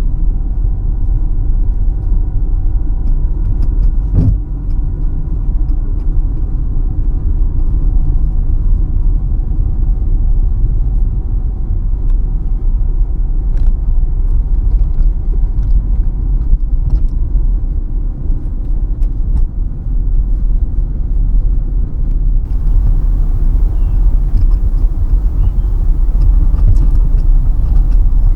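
A car's steady low rumble of engine and tyres on the road, heard from inside the cabin, with a few faint ticks. About three-quarters of the way through, a brighter hiss of road or wind noise rises and stays.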